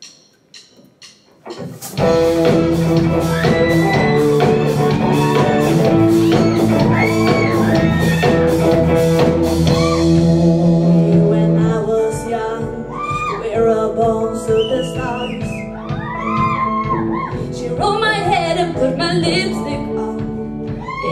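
A few sharp count-in clicks, then a live rock band (drum kit, electric guitars, bass and keyboard) comes in together at full volume about two seconds in, with singers singing over it.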